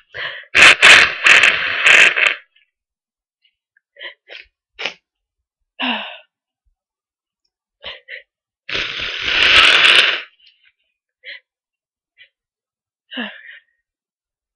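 A person blowing their nose hard twice, a long forceful burst about a second in and another near ten seconds, with short sniffles between.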